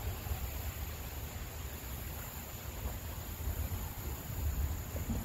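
Wind buffeting the microphone as an uneven low rumble, over a steady hiss.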